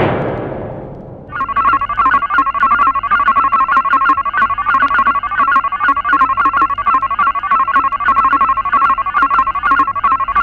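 Electric bell ringing in a rapid, continuous trill at one steady pitch for about nine seconds, then stopping abruptly. It begins just after a loud, noisy burst has died away.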